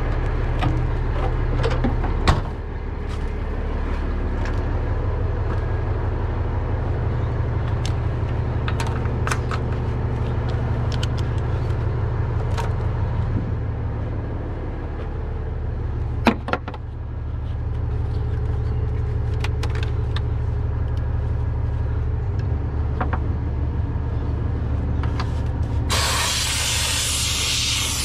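Heavy diesel truck engine idling steadily, with a few sharp knocks, a loud one about two seconds in and another about sixteen seconds in, and a loud hiss starting near the end.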